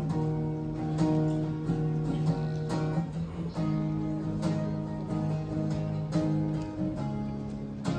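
Acoustic guitar strumming chords in a steady rhythm, with a change of chord about three and a half seconds in.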